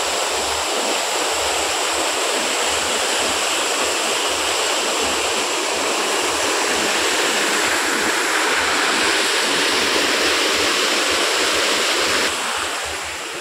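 Rushing floodwater pouring through a canal sluice gate: a loud, steady roar of water that gets somewhat quieter about a second before the end.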